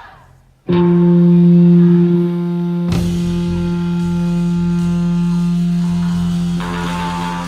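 Rock band music: a long held electric guitar note rings out about a second in, and the rest of the band comes in under it with a hit about three seconds in.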